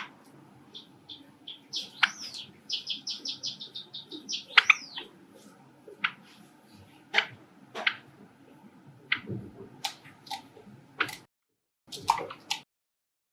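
Pet Java sparrows calling with sharp, separate chirps. One bird gives a quick run of about ten rapid repeated high notes a few seconds in. The sound drops out completely for a moment near the end.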